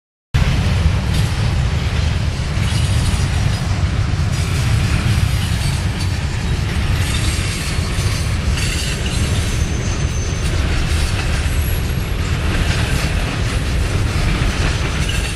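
Long freight train passing: a steady low rumble from its eight diesel locomotives as they pull away, with the wheels of loaded steel-coil cars rolling on the rails.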